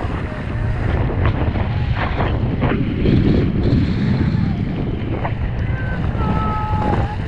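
Wind buffeting the camera microphone and water rushing and splashing as an inflatable banana boat is towed at speed across the sea.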